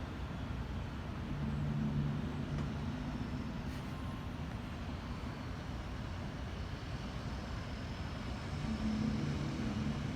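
A low, horn-like droning tone of the kind reported as 'sky trumpets', heard twice for about two seconds each, once near the start and again near the end. A steady low rumble runs underneath.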